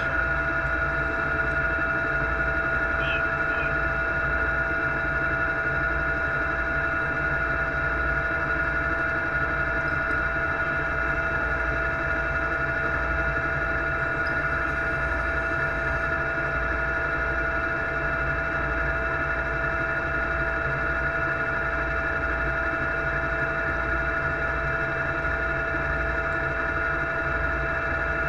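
A machine running steadily, with a constant high whine over a low, pulsing rumble that does not change.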